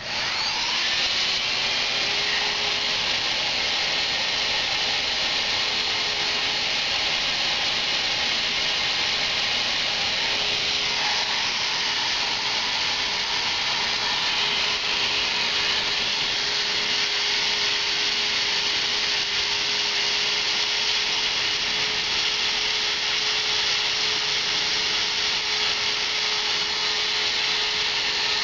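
Leister Triac handheld hot air plastic welder switched on: its blower motor spins up in the first second, then runs steadily with an even hiss of air and a steady hum.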